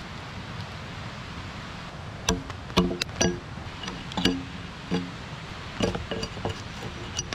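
Steady patter of rain, then about two seconds in a run of roughly ten sharp clinks and knocks of hard objects handled or struck together, each with a short pitched ring.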